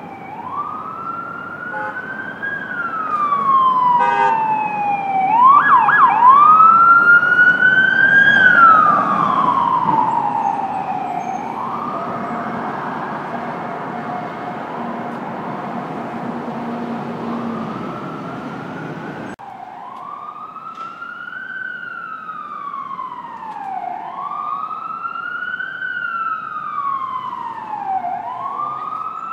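Emergency vehicle siren on a wail setting, its pitch rising and falling about every four to five seconds over street traffic noise. It is loudest a few seconds in, where quicker overlapping siren sweeps briefly cross it. After an abrupt change in the background about two-thirds of the way through, a siren carries on in the same slow rising and falling wail.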